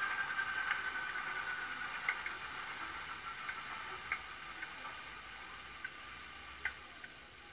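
Sound decoder in an N gauge Class 37 model (LokSound V4, South West Digital sound file) playing its diesel engine sound through a tiny speaker: a thin whine that slowly falls in pitch and fades away, with a handful of sharp ticks, as the engine sound runs down. It cuts off abruptly at the end.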